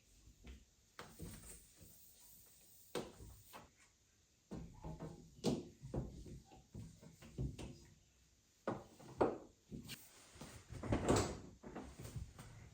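Irregular knocks, clicks and rustling of things being handled, about a dozen separate strikes, the loudest cluster near the end.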